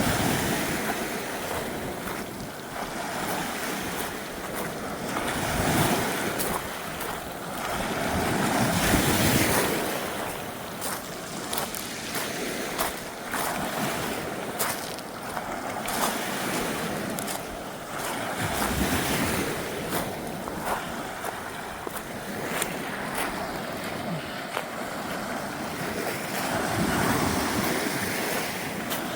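Ocean waves washing on the shore, the surf swelling and easing every several seconds, with wind rushing over the microphone.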